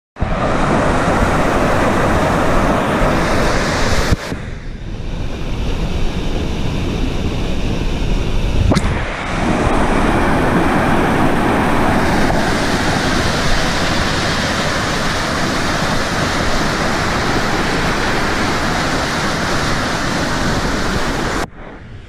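Loud, steady rush of a waterfall pouring over rock, heard close up. Its tone shifts abruptly a few times, about 4, 9 and 12 seconds in.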